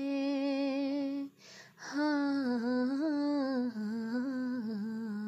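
A woman's voice humming without words and without accompaniment. It holds one long note, takes a short breath, then holds a second long note that steps down in pitch.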